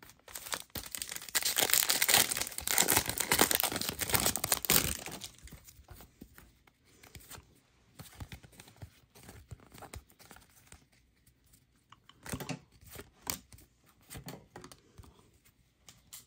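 Trading card packaging being torn open, a loud crinkling tear for about the first five seconds, followed by quieter rustling and small clicks of cards being handled.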